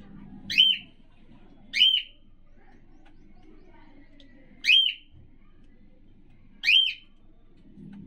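A cockatiel giving four short, loud whistled calls, each rising and then falling in pitch, spaced a second or more apart.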